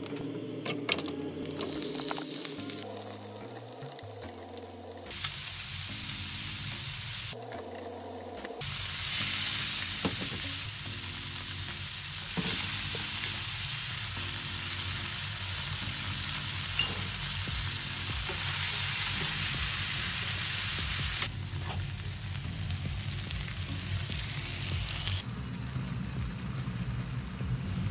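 Minced pork frying in oil in a frying pan, a steady loud sizzle broken by a few edit cuts. Near the end it gives way to a pot of water at a rolling boil as fresh noodles are dropped in.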